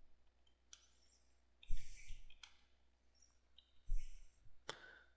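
Faint clicking of computer keyboard keys being typed, in three or four short clusters of keystrokes with pauses between them.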